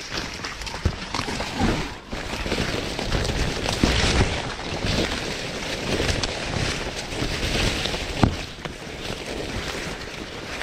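Corn leaves and stalks rustling and swishing against the camera and clothing as someone pushes through standing corn, with sharp slaps of leaves now and then.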